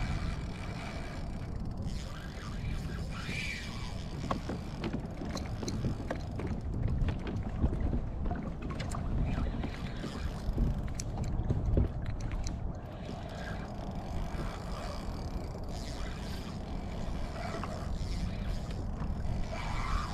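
Water slapping against a Hobie Outback kayak's plastic hull, with a steady low wind rumble on the microphone. Scattered light clicks and knocks come through in the middle.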